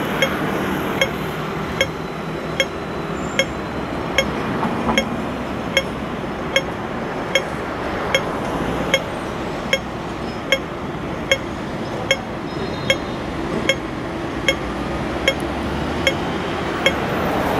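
Hong Kong pedestrian crossing's audible signal ticking slowly and evenly, about one sharp tick every 0.8 seconds, the slow rate that marks the don't-walk phase. Steady street traffic noise runs underneath.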